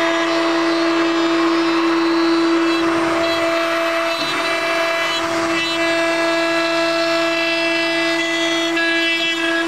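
CNC router spindle running with a steady high whine while its bit carves a wooden log turning on the rotary axis, with the rasp of the cutter in the wood.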